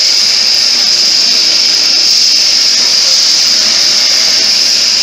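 Electric coffee grinder grinding roasted coffee beans, running steadily with a loud, even, high-pitched hiss and whine that does not change.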